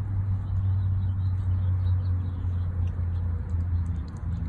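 Steady low mechanical hum, with faint scattered clicks of a dog chewing a raw chicken leg quarter.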